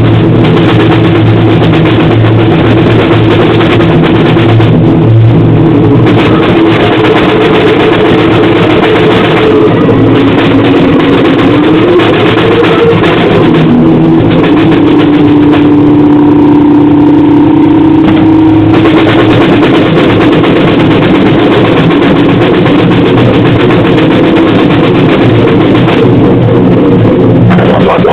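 Harsh noise-grind music: a wall of heavily distorted, clipped noise over droning pitches, with one pitch sliding upward partway through and a single tone held for a few seconds after it.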